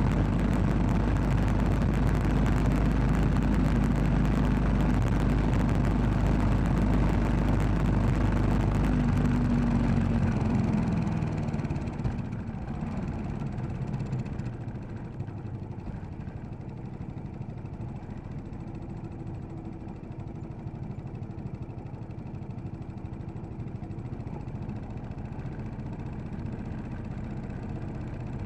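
Royal Enfield Classic 500's single-cylinder engine running under way, with wind rush on the microphone. About eleven seconds in, the engine note drops and the sound falls quieter as the bike rolls off the throttle and slows to a low, steady run.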